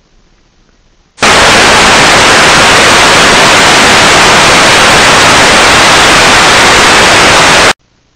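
Loud, even hiss of television static from a CRT set showing snow on an empty channel, cutting in about a second in and stopping abruptly near the end.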